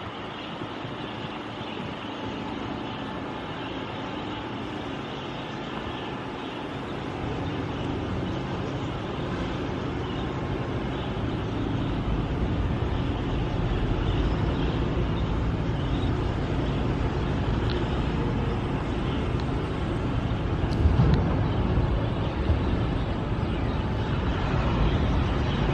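Outdoor city street ambience: steady traffic noise, with a deeper rumble building from about seven seconds in.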